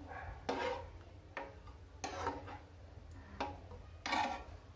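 A spatula stirring thick sambar in a nonstick kadhai: about five separate scrapes and taps against the pan, with wet sounds from the dal mixture.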